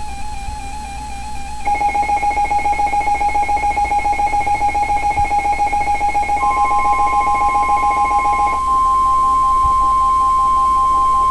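An electronic music bed with a steady note that turns into rapid pulsing about two seconds in. A bit past halfway, a loud, steady, single-pitch weather-radio warning alarm tone comes in and holds, the attention signal that opens a NOAA Weather Radio warning broadcast.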